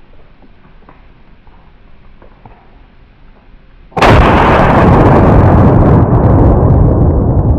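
.243 Savage deer rifle fired close by: a single sudden, very loud shot about four seconds in, after near quiet, that rumbles on and slowly fades over several seconds. It is the shot that hit the doe well.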